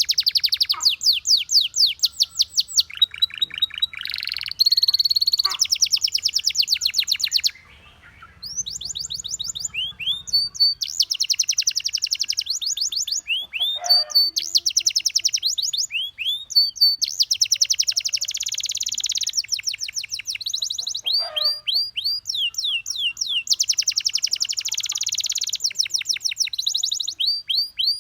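Domestic canary singing a long song of fast trills and rolls, broken by rising and falling whistled notes, with a short pause about eight seconds in.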